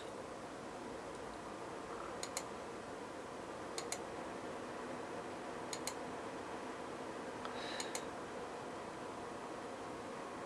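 Computer mouse clicking, mostly as quick double clicks about every two seconds, over a steady faint hiss of room tone.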